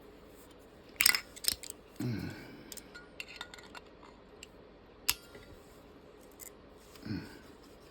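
Sharp clicks and taps of small hardware or hand tools being handled at a workbench, a few loud ones about a second in, then scattered lighter ticks. A brief low murmur comes about two seconds in and again near the end.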